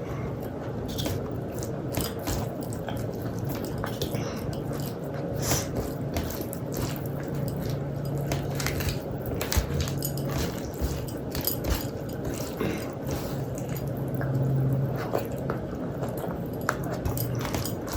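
Close-miked wet mouth sounds of eating soft rice mixed with dal and boiled vegetables: irregular smacking clicks and squelches, over a steady low hum.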